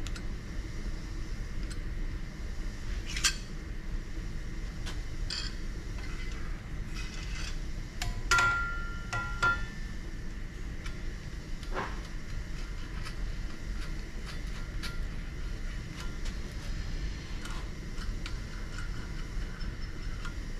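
Scattered metal clicks and clinks as a bob weight is fitted by hand onto a crankshaft rod journal on a balancing machine, with one sharper clink about eight seconds in that rings briefly. A steady low hum runs underneath.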